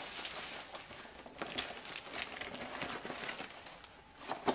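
Cardboard and plastic packaging rustling and crinkling as hands unpack a boxed kit, with irregular small crackles and a sharper tap near the end.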